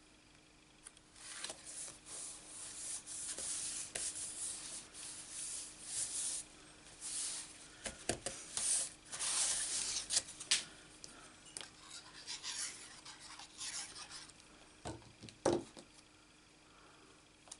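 Hands rubbing and smoothing a patterned paper panel flat onto a card base: a dry, papery swishing that comes and goes for about ten seconds, then a couple of soft knocks later on as card pieces are handled.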